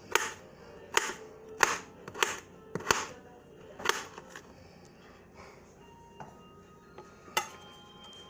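Knife chopping on a cutting board: about seven sharp, separate chops, six in the first four seconds and one more near the end.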